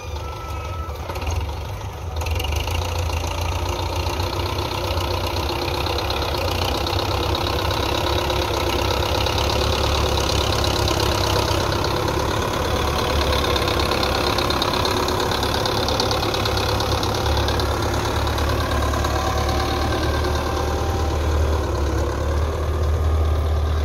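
A Belarus 510 tractor's diesel engine running steadily as it pulls a potato planter through the field. It gets louder about two seconds in and stays there.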